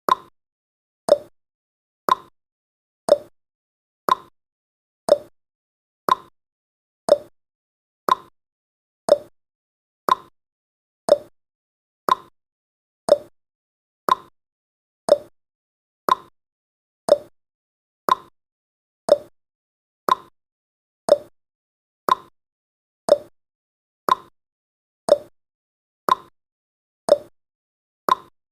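Countdown timer's clock-ticking sound effect: sharp ticks exactly one a second, alternating between a slightly higher and a slightly lower tick like a tick-tock.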